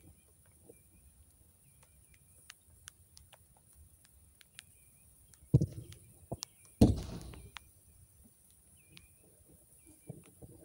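Two loud impacts just over a second apart about halfway through, the second with a rattling tail: a ball being hit and banging against the rink's boards. Faint bird chirps repeat about once a second.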